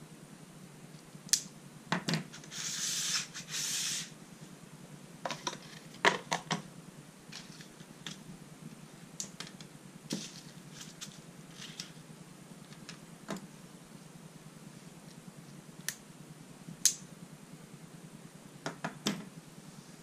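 Scattered clicks and light knocks of a folding pocket knife being opened and laid down, and of its box and packaging being moved around on a tabletop. Two short stretches of rustling come about three seconds in.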